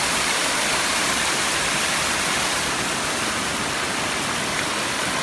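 Floodwater from an overflowing irrigation canal rushing across a road in a steady, unbroken torrent.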